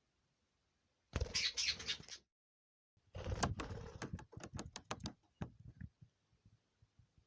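Pet budgerigars: a burst of scratchy noise about a second in, then another about three seconds in that breaks up into a run of sharp clicks and taps.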